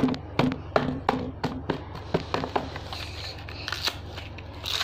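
Slime being squeezed and slapped by hand, giving a quick irregular run of sticky clicks and pops, over a steady low hum.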